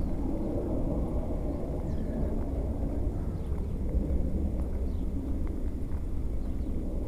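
Outdoor street ambience: a steady low rumble, with a few faint high chirps now and then.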